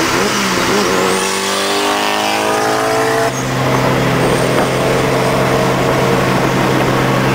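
Turbocharged sports car engine pulling hard under acceleration, its pitch climbing for about three seconds with a high whine rising over it. It then drops back at a brief break into a steady cruising drone heard from inside the car.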